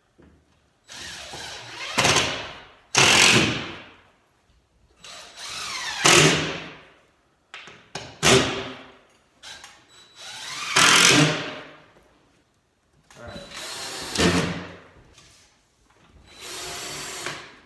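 A power drill driving screws into drywall, in about seven separate runs of one to two seconds each, with short pauses between them.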